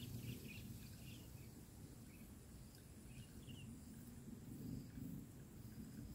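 Faint outdoor ambience by a rice-field ditch: a low steady rumble with a few faint, short bird chirps in the first second and again about three seconds in.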